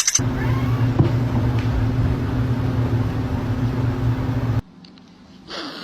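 A steady low motor hum that cuts off abruptly about four and a half seconds in.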